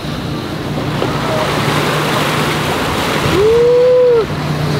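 Rush of water and wind past a moving yacht, over the low steady hum of its engine. Near the end comes one loud drawn-out tone, about a second long, that rises and then falls.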